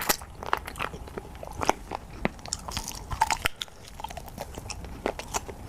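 Close-up chewing and biting on spicy marinated chicken feet: irregular crunches and sharp clicks, several a second.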